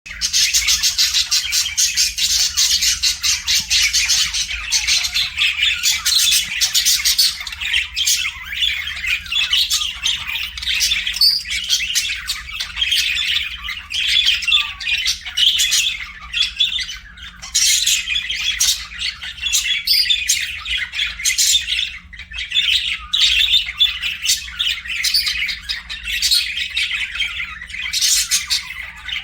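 Budgerigars chirping and chattering continuously, many fast overlapping chirps and warbles with squawks mixed in.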